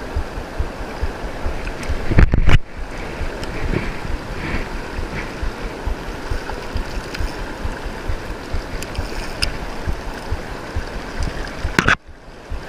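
Flowing river water rushing close to the microphone, with wind buffeting it in low thumps. A brief louder rush comes about two seconds in, and the sound drops away abruptly near the end.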